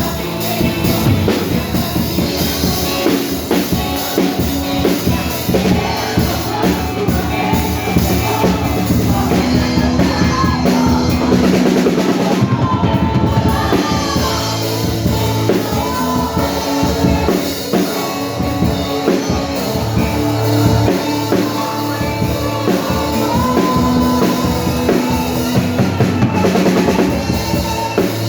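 A live band playing rock-style praise music, with a drum kit keeping a steady beat under sustained instrument notes.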